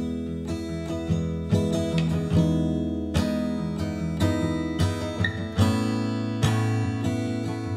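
Background music: a strummed acoustic guitar playing a song's instrumental intro, with a chord change about two-thirds of the way through.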